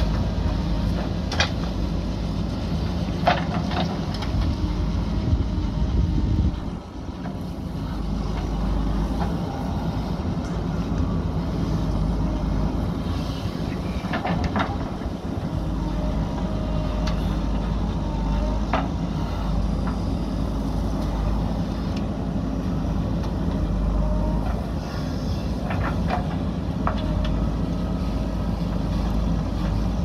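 JCB backhoe loader's diesel engine running steadily as the backhoe digs into the hillside, with a few sharp knocks from the bucket and arm at irregular moments.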